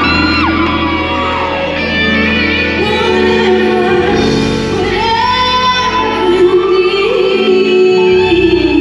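Music with female voices singing long held notes that glide up and down over a backing band.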